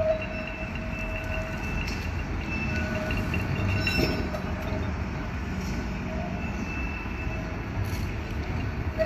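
Open-top Blackpool Boat tram running slowly toward the listener on the street rails, a low rumble under a thin high squeal from the wheels that comes and goes. There is a single sharp clack about four seconds in.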